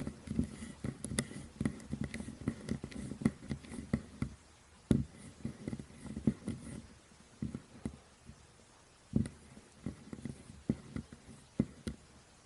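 Faint, irregular clicks and taps of a small Torx driver and fingers handling a folding knife while its pocket clip screw is being unscrewed.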